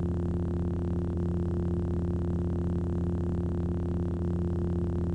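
A steady, low synthesizer drone: one held low note with its overtones, unchanging throughout.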